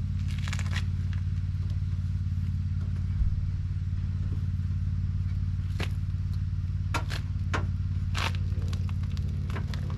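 A steady low hum runs underneath, with a handful of sharp clicks and scrapes as parts of a car's damaged front end are handled, several close together in the second half.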